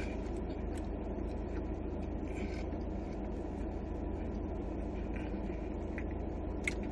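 Steady low rumble of a car idling, heard inside the cabin, with a few faint clicks.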